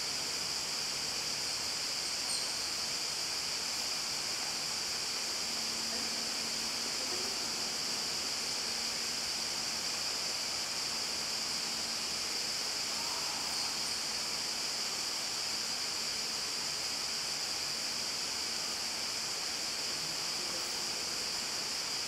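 Steady background hiss with a faint low hum.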